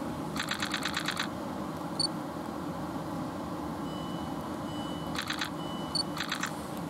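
South Western Railway Class 450 electric multiple unit standing at the platform with its equipment humming steadily, while its door-closing warning sounds in short bursts of very rapid beeping: one about half a second in and two more near the end, with a few single high bleeps and a steady high tone between them.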